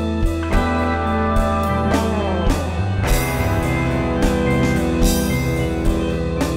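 Instrumental rock jam from a band with guitar, keyboards and drum kit: held chords over a regular drum beat. About two seconds in, a note slides down in pitch and the chord changes.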